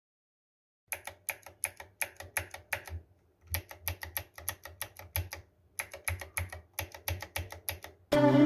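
Typing on a Cosmic Byte CB-GK-23 Artemis mechanical keyboard, foam-modded and fitted with PBT keycaps: quick keystrokes at about four or five a second in three short runs with brief pauses between. Music cuts in just before the end.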